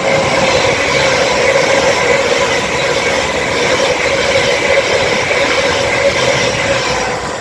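Passenger train running through at speed: a steady, loud rush of wheel and running noise with a faint steady hum underneath, easing slightly near the end.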